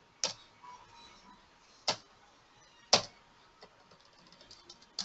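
Computer keyboard keys being pressed: three separate sharp clicks, then a quick run of lighter taps near the end as a field is retyped.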